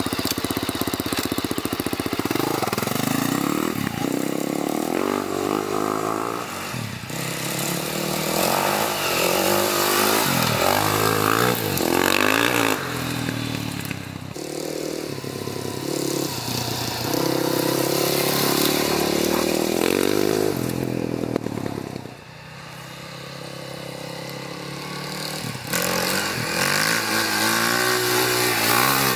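2004 Husaberg 450 four-stroke single-cylinder dirt bike engine, just started, blipped and then ridden hard, its pitch rising and falling again and again with the throttle and gear changes. It grows fainter about three quarters of the way through, then louder again as the bike comes back past near the end.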